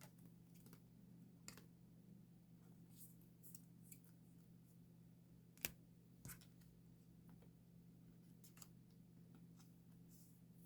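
Faint handling of photocards and their plastic sleeves: scattered small clicks and rustles, with one sharper click a little past halfway, over a steady low hum.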